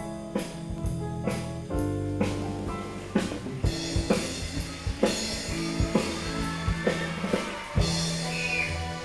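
Instrumental band music with a drum kit: held chords over a moving bass line and regular drum hits, with cymbals washing over the middle stretch.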